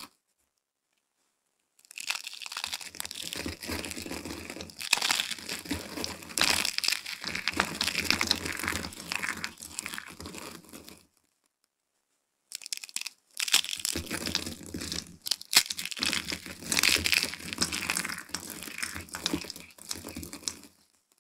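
Dry soap shavings crushed and crumbled between the fingers: a dense, crisp crunching and crackling of many small flakes. It comes in two long spells, with a silent gap of about a second and a half in the middle.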